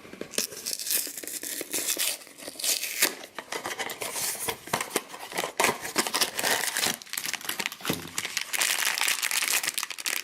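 Crinkling and tearing of a Funko Mystery Minis blind box's packaging as it is opened by hand, a continuous run of irregular crackles and rips.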